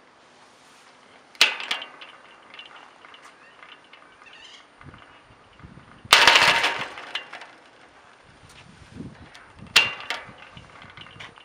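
Tubular metal gate on spring-loaded hinges slamming shut three times, each a sharp metallic clang with ringing. The second slam is the loudest and rings longest. This hard slamming is typical of a spring hinge closing the gate from fully open.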